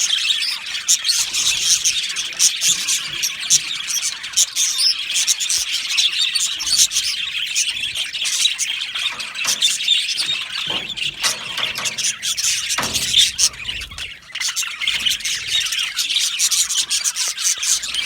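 A flock of budgerigars chattering and chirping together, many birds at once with a dense, continuous twittering and squeaky calls. This is the busy, contented chatter of a budgie colony.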